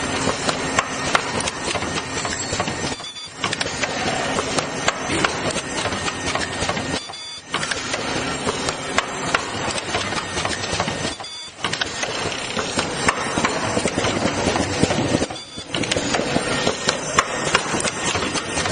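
Mask ear-loop cutting and welding machine running, a dense rapid clatter of mechanism clicks that stops briefly about every four seconds.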